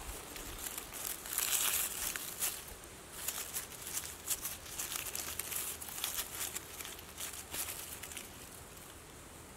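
Dry forest-floor litter (pine needles, twigs and dead leaves) rustling and crackling in quick irregular crinkles as a hand parts it and pulls up a mushroom. The crackling is loudest about a second and a half in and dies away near the end.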